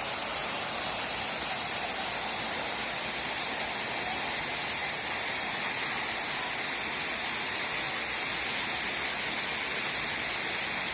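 Waterfall rushing as a steady, even noise with a strong hiss in the highs.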